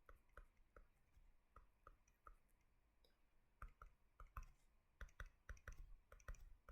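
Faint, irregular clicking from drawing on a computer, a few clicks a second, growing busier from about three and a half seconds in.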